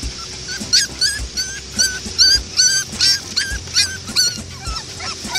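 Schipperke puppies whimpering and yipping in a rapid series of short high-pitched cries, several a second, starting about half a second in, over background music with a low beat.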